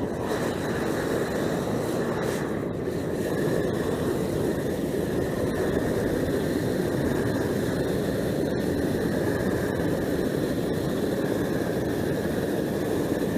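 LP propane hand torch burning steadily, an even rushing noise without breaks, as it heats rubberized asphalt crack-sealing tape to burn off its top liner and melt it onto the pavement.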